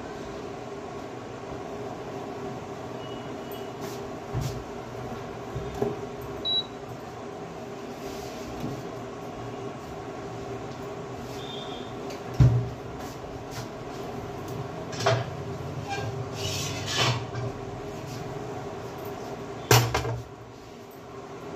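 A steady mechanical hum runs under household kitchen clatter: scattered knocks of doors and cookware, with a loud bang about halfway through and another near the end.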